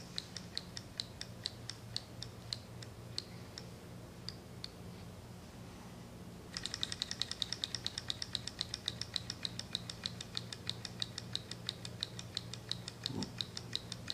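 Model Stirling hot-air engine ticking lightly as its flywheel turns: the ticks slow and die away a few seconds in, then after another spin by hand they return suddenly, quicker and steady, as the engine catches and keeps running on its own.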